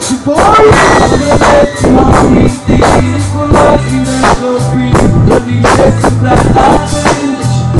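Live pop band music played loud through a PA: amplified singing over a steady drum beat and bass.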